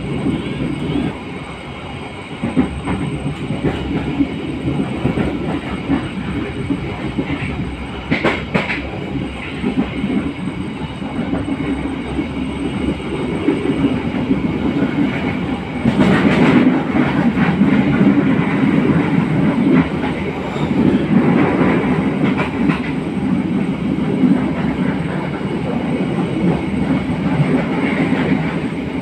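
Moving passenger train heard from inside the carriage: a steady rumble of the wheels running on the rails. The rumble grows louder a little past halfway.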